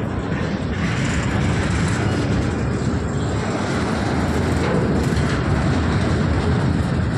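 Indian Railways goods train of covered box wagons (BCNA type) rolling past. The steel wheels clatter on the rails over a steady low rumble.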